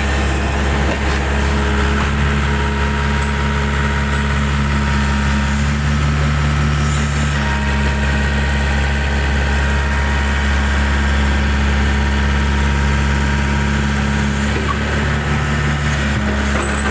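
Backhoe's diesel engine running steadily, its note shifting slightly about two seconds in and again near the end.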